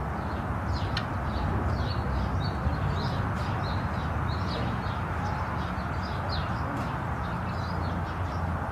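Small birds chirping, many short high chirps in quick succession, over a steady low hum and background noise.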